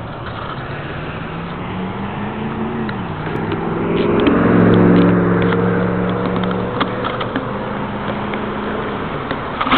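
Car engines running in traffic, over a steady rush of road noise. The engine hum swells to its loudest about four to five seconds in as a car passes close, then eases off near the end.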